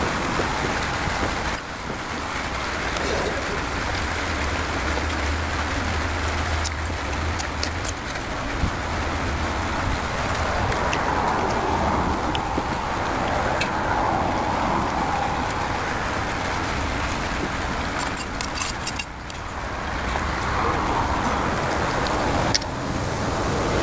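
Steady rushing background noise, with a low hum for a few seconds near the start and a few light clicks.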